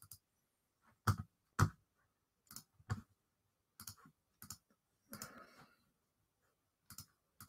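Computer mouse clicking: a handful of short, separate clicks spaced irregularly, the two loudest about a second and a half in.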